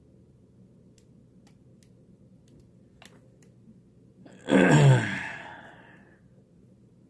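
Faint scattered clicks of lock picks working in a brass padlock, then about four and a half seconds in a loud frustrated sigh, the voice falling in pitch and fading out.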